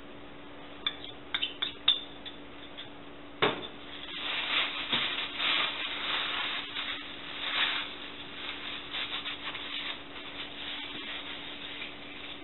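Thin plastic bag crinkling and rustling as it is handled and twisted shut, preceded by a few light clicks about a second in.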